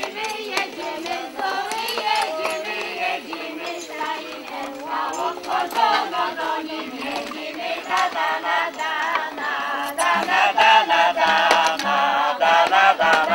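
A group of villagers, women's voices prominent, singing a traditional Polish folk wedding song together, louder near the end. A few short knocks sound over the singing in the second half.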